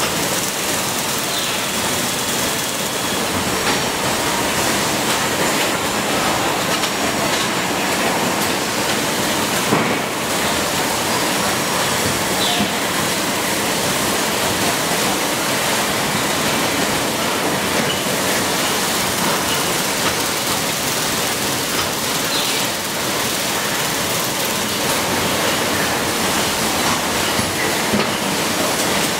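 Steady noise of a motor stator assembly line running, with a few faint clicks from the machines.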